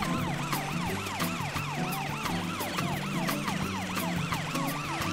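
Cartoon ambulance siren going in a fast rising-and-falling yelp, several cycles a second, over background music with a steady beat.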